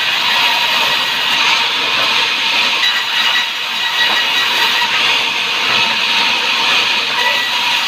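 Sawmill saw running through timber: a loud, steady high hiss with a faint whine held underneath.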